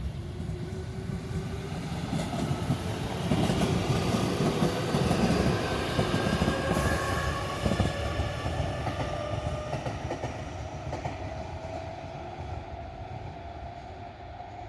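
JR 315 series electric train passing through a station: a rumble of wheels on rails with a whine from the traction motors that rises slowly in pitch. It is loudest a few seconds in and fades toward the end.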